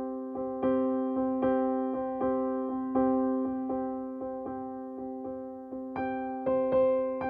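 Background music: a gentle electric piano playing a steady repeating pattern of notes, with a change of chord about six seconds in.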